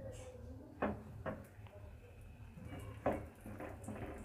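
A few soft knocks and handling sounds as a filled paratha is laid into a nonstick frying pan and pressed down by hand, with no sizzle from the barely warmed oil.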